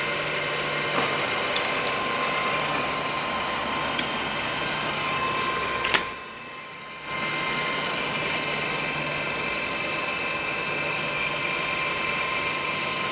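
Milling machine running with a steady gear whine and low hum, with light clicks now and then. About six seconds in there is a click, the machine stops for about a second, then runs again.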